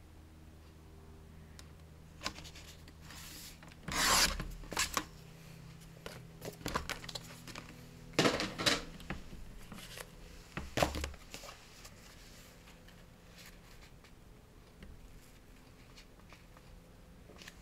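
Paper and card being handled and rubbed, with short scraping bursts about 4, 8 and 11 seconds in and lighter scratching between.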